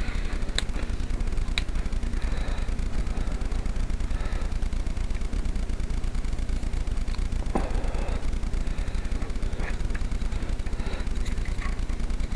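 A few light clicks and small handling noises as parts of a model helicopter's rotor head are fitted back together by hand, over a steady low hum.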